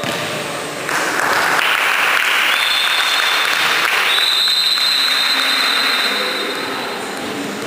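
Applause in a sports hall, starting about a second in and fading out near the end.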